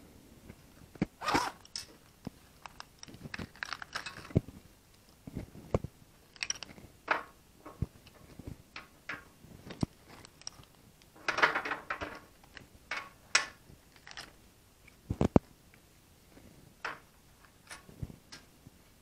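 Handling noises as a tyre plug kit is unzipped from its vinyl pouch and unpacked onto a diamond-plate metal tabletop: a zip, rustling of paper and plastic, and scattered clicks and clacks of tools being set down, the loudest a sharp knock about three quarters of the way through.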